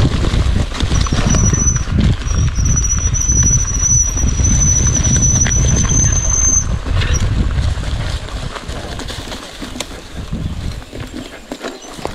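Mountain bike riding a rough trail with a low rumble of tyres, and a steady high brake squeal from about a second in until past halfway. The rumble eases after about eight seconds.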